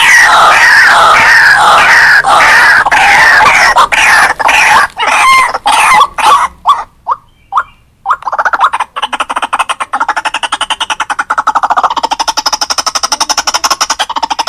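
White-breasted waterhen calling loudly: a run of repeated harsh, croaking notes that break into separate calls and stop for about a second, about seven seconds in. A fast, rapid chatter of notes then starts up and keeps going.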